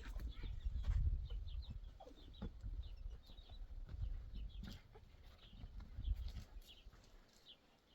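Chickens clucking and calling in short, scattered notes, over a low rumble.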